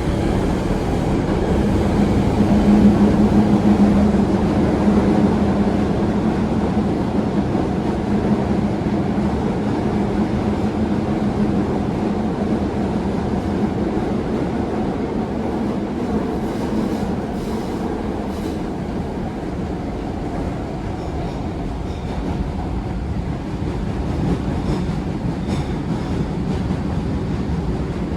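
Osaka Metro 22 series GTO-VVVF subway train running: a steady rumble of wheels on rail with a motor hum that is strongest in the first dozen seconds and then fades as the train runs on. A few faint clicks come in the second half.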